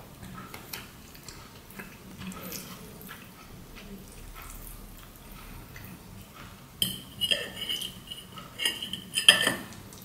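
Metal fork scraping and clinking on a ceramic plate while gathering spaghetti. The sound is soft with scattered small clicks at first, then comes a run of loud, sharp scrapes with a ringing tone in the last three seconds.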